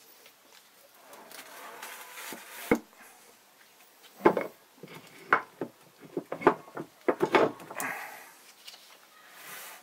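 Heavy cast-iron electric motor being shifted by hand on a workbench and set onto a round metal plate: scraping at first, then a run of clunks and knocks, closest together about seven seconds in.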